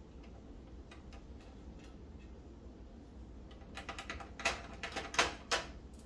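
Small clicks and taps from hands working on a microwave's plastic control panel and circuit board: a few faint clicks, then a quick cluster of sharper clicks in the last two seconds.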